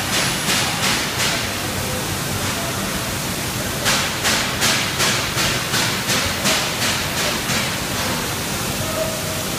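Industrial machinery at a water heater enameling furnace: a loud steady rushing noise with a regular hissing pulse about three times a second, which stops about a second in and returns from about four to seven and a half seconds in.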